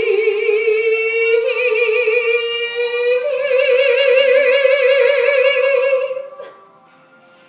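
A woman singing solo and unaccompanied, holding one long note with a wide vibrato that steps up in pitch twice before breaking off about six seconds in.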